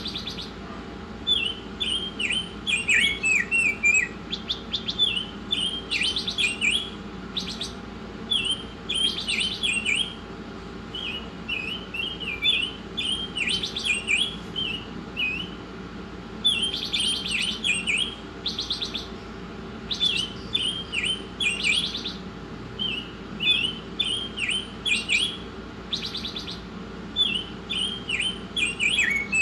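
A small songbird singing steadily in short, rapid phrases of sharp downward-sweeping chirps, every one to two seconds. Some phrases carry a fast rattling trill. A faint steady hum runs underneath.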